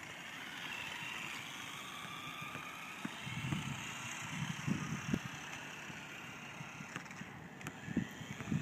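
Radio-controlled trucks driving on concrete: a faint motor whine that glides up and down in pitch as they speed up and slow down, with a few low rumbles about three to five seconds in and again near the end.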